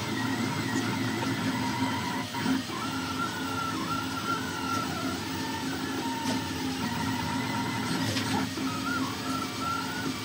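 Two delta 3D printers, a Mini Kossel Pro and a Kossel Air, printing at the same time: their stepper motors whine in several tones that slide up and down in pitch as the effectors change speed and direction, over a steady low hum.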